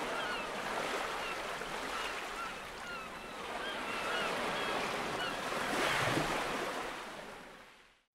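Outdoor ambience: a steady rushing noise of wind and water with repeated short bird chirps over it, swelling a little about six seconds in and fading out near the end.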